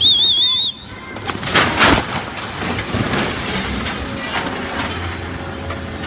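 Vehicle engine running steadily, with a warbling high tone in the first moment and a crunching noise about a second and a half in.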